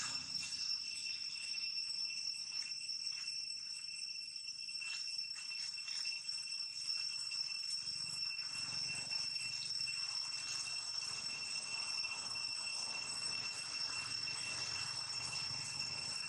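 A steady, high-pitched insect drone runs throughout, with a few faint taps and rustles in the first several seconds.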